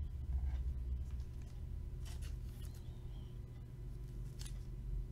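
Faint rustles and light clicks of a trading card being handled and turned in the hands, a couple of them around two seconds in and another near the end, over a low steady hum.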